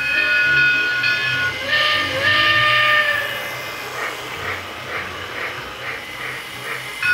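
Battery-powered Lionel Northern Star toy steam locomotive's recorded sound effects from a small speaker: a tune ends about one and a half seconds in, followed by a hissing steam-whistle blast, then steam chuffing at about two puffs a second.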